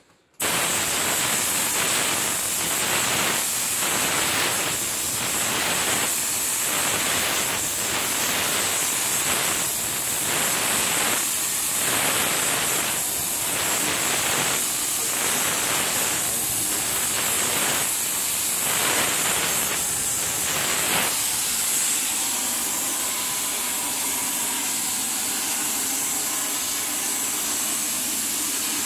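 Paint spray gun hissing as it sprays a metal door. It starts suddenly, swells and fades about once a second for some twenty seconds, then carries on as an even hiss.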